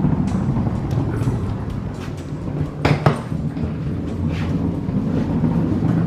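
Wheeled suitcase rolling across a hard floor, its wheels giving a steady low rumble, with two sharp clacks close together about halfway through.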